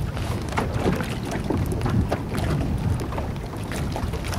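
Wind buffeting the microphone over choppy water, with small waves lapping and slapping irregularly against the side of a small boat.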